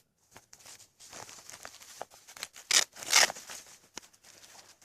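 Rustling and crinkling as gear is handled and pulled out of a backpack, with two louder rasping sounds about half a second apart halfway through.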